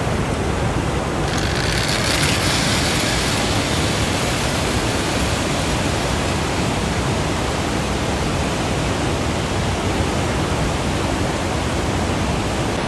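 Steady roar of the Li Phi waterfall's rushing water, a constant loud wash of noise.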